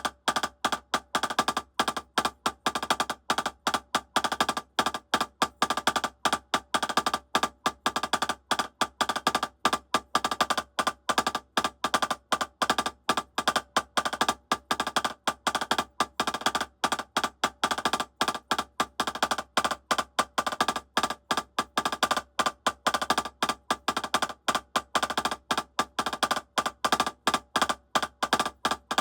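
Drumsticks playing a rapid, steady stream of sharp strokes in repeating groups: a three-stroke rudiment exercise on a drum.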